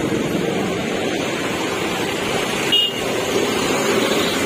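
Steady road traffic noise with a short vehicle horn toot near the middle.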